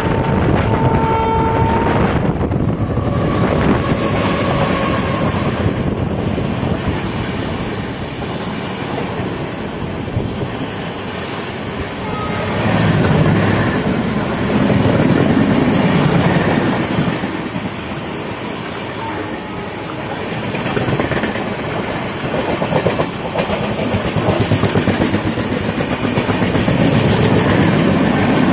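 Two trains running side by side on parallel tracks, heard from inside the moving passenger train: a steady rumble of wheels on rail with the rhythmic clatter of wheels over rail joints, swelling and easing as the coaches pass. A train horn sounds briefly about half a second in.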